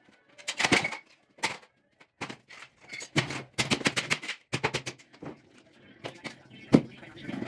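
A coffee machine being smashed: a rapid series of hard blows cracking and breaking its casing, with about a dozen hits close together in the middle and one loud, sharp crack near the end.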